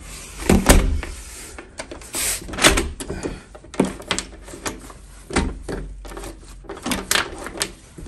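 A front door's lever handle, latch and thumb-turn cylinder being worked by hand, giving a series of separate metallic clicks and clunks, the loudest about half a second in. The door is being tested after hinge and keep adjustments, to check that it now shuts and locks cleanly.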